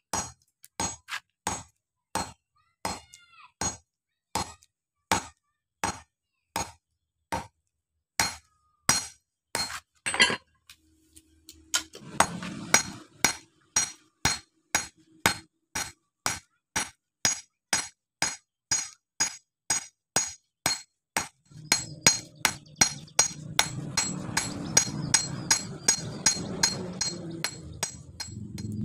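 Hand hammer forging a red-hot knife blade on a small steel anvil: a steady run of ringing metal-on-metal blows, about one and a half a second, that quickens to about two a second after a short pause midway. A low steady noise runs under the blows in the second half, louder near the end.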